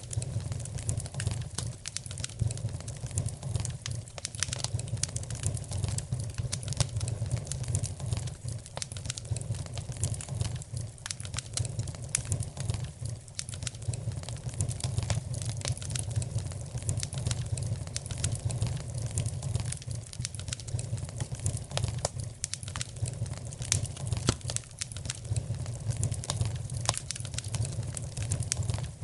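Fire in a fireplace crackling, with frequent irregular sharp pops over a steady low rumble of the flames.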